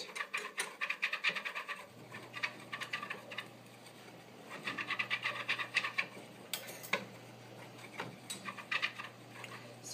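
Hygiene test swab scrubbed back and forth over a wire pet cage, giving quick runs of scratching, rubbing strokes. There are three bouts: near the start, about halfway through and near the end.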